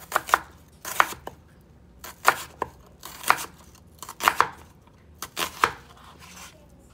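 A chef's knife slicing through an onion and tapping down on a wooden cutting board, a crisp knock roughly every second, some strokes in quick pairs.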